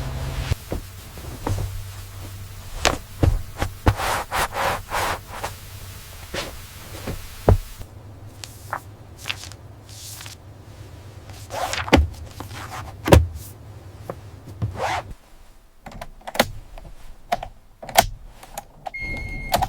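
An irregular string of knocks, clicks and thuds, with a short high tone near the end.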